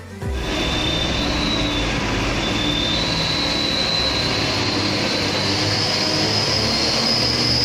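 RC model truck driving, its motor and gearbox running with a steady high whine over rough running noise. The whine steps up in pitch about three seconds in and again near five and a half seconds.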